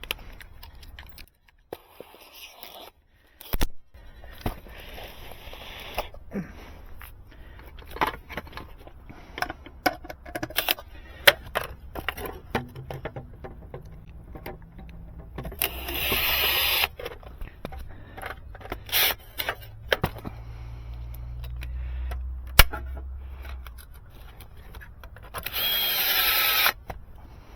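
Small tools and hardware being handled: scattered clicks, taps and rattles. Two louder hissing bursts of about a second each come about 16 and 26 seconds in, and a low rumble runs under the middle part.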